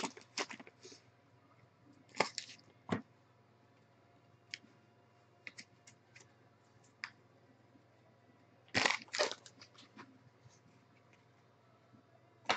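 Trading cards being thumbed through and slid over one another in the hands: scattered faint clicks with a few louder brief rustles, the loudest a pair about nine seconds in, over a low steady hum.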